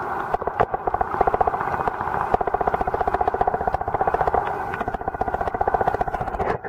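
Boat engine and propeller heard underwater: a steady, rapid pulsing of about a dozen beats a second.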